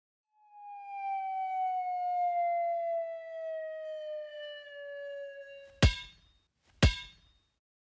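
A long whistle-like tone with overtones, gliding slowly downward in pitch for about five seconds, then two sharp pops about a second apart near the end.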